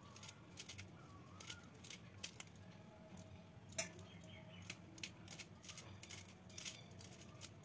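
Serrated kitchen knife slicing green chillies on a chopping board: faint, irregular taps of the blade on the board.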